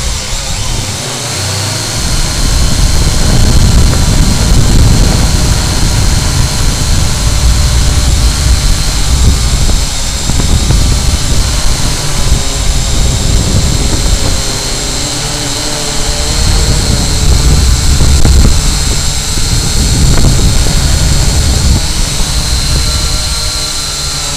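Syma X8W quadcopter's motors and propellers whining steadily, heard from the camera carried on the drone, with wind buffeting the microphone in gusts.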